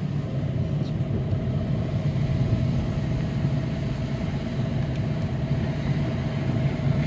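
Car driving at a steady pace, heard from inside the cabin: an even low hum of engine and road noise.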